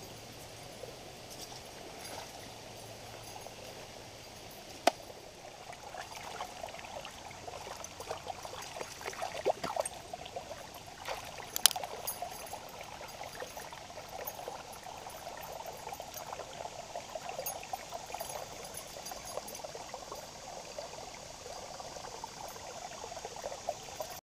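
Shallow river water trickling and splashing over rock ledges between boulders, growing louder from about six seconds in, with a sharp click about five seconds in and another near the middle.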